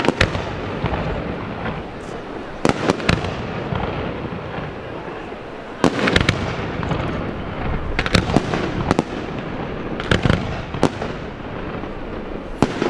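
Professional aerial firework shells bursting: about a dozen sharp bangs, several coming in quick pairs and threes, over a continuous din that never dies away between them.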